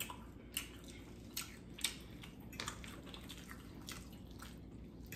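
Mouth sounds of eating spaghetti: quiet, wet smacks and clicks at uneven intervals, about eight in all, over a low steady hum.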